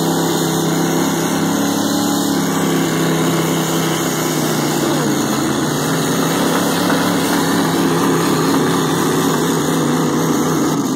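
Pickup truck engines held at high revs under heavy load, with tires spinning in mud as two 3/4-ton Chevy pickups strain against a chain in a tug of war. The engine note is steady and holds throughout.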